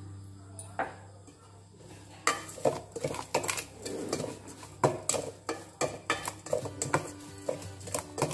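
A spoon stirring and tossing a wet salad in a stainless steel bowl, clinking and scraping against the metal. The clinks come irregularly, several a second, from about two seconds in.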